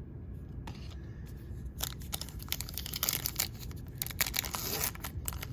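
A foil trading-card pack wrapper being torn open and crinkled by hand. The first second or two holds only a few faint clicks of handling, then dense crinkling and tearing sets in.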